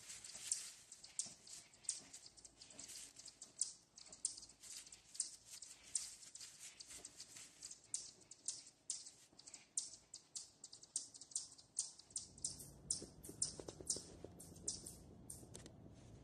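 Dry fallen leaves crackling and rustling in quick, irregular ticks as something moves through the leaf litter. About twelve seconds in, a low steady rumble joins in.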